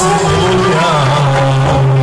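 Loud live band music with electric guitar: a winding melody over a steady bass line, with a sharp percussion hit right at the start.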